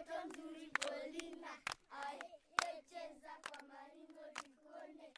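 High voices singing in phrases, with sharp claps keeping a beat about once a second.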